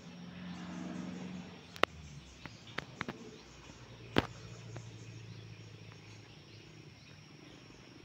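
Steady high-pitched drone of insects in the trees, under a low hum, broken by a handful of sharp clicks about two to four seconds in.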